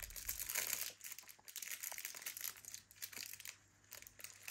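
A small hand tool scratching and scraping at a dinosaur dig block, with gritty crumbling and small irregular ticks; the block has been wetted in places to soften it. The scraping eases off briefly near the end.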